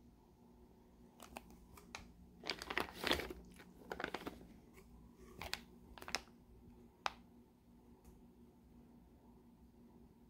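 Plastic fish shipping bags crinkling as they are handled: a cluster of rustling crackles a few seconds in, then a few single sharp crinkles.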